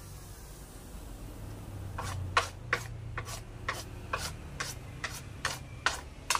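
Short brushing and scraping strokes across a freshly planed wooden board, about two a second, sweeping off loose shavings.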